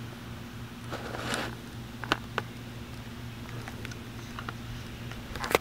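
Quiet background with a steady low hum, a brief soft rustle about a second in, and a few light clicks and taps, the sharpest near the end.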